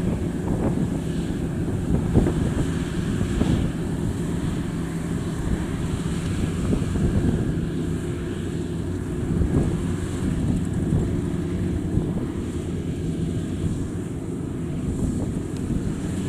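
World WD102 Plus rice combine harvester's diesel engine running steadily, with wind buffeting the microphone.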